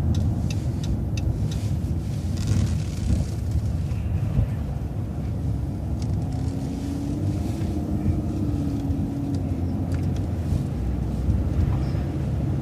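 City transit bus running, heard from inside: a steady low engine and road rumble, with a whine that rises and then falls away between about six and ten seconds in.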